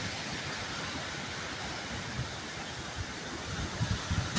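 Strong storm wind rushing steadily through trees, with gusts buffeting the microphone in low thumps near the end.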